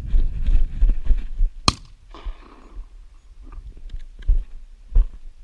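A single shotgun shot about a second and a half in, sharp with a short echo trailing after it, over low rumble and knocks on the microphone.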